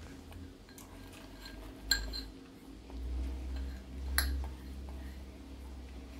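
Chopped red onion being tipped into a pot by hand, with two sharp kitchenware clinks about two seconds and four seconds in, over low handling bumps.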